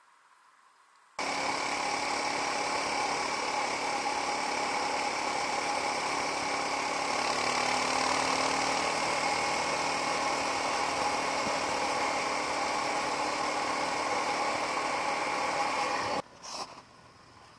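Motorcycle engine running at a steady speed, starting abruptly about a second in and cutting off near the end, followed by a couple of short knocks.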